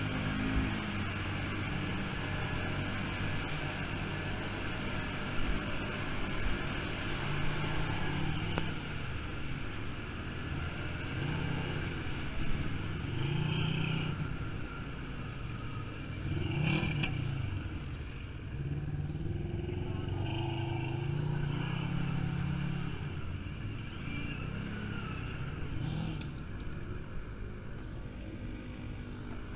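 ATV engine running, its pitch rising and falling over and over as the throttle is worked, with a few short knocks along the way.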